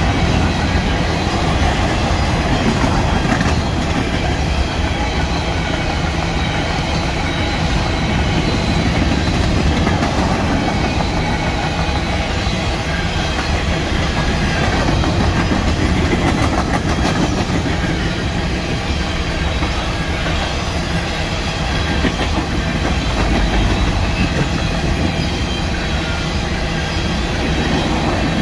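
Empty covered hopper freight cars rolling steadily past at close range, their steel wheels rumbling on the rails with a clickety-clack over the rail joints.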